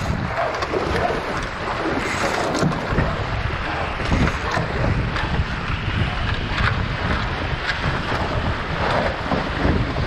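Steady wind noise on the microphone over water rushing along the hulls of an F18 catamaran, a Goodall Design C2, sailing at speed.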